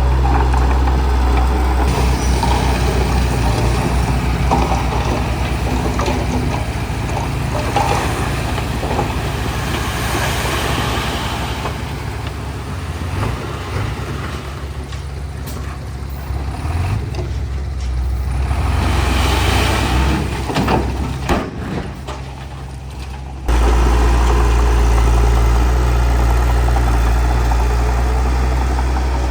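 Bulldozer's diesel engine running, a steady low drone that eases off and varies in the middle, then comes back at full level suddenly about 23 seconds in.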